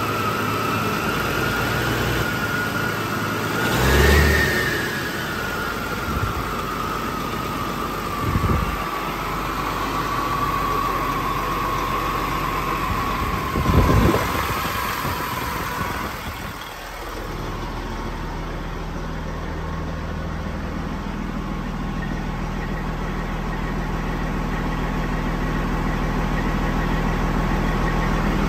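Freshly installed heavy diesel engine in a semi truck idling shortly after its first start, with a steady whine that slowly sinks in pitch over the first half and a few brief swells in engine sound. It runs evenly, without knocking.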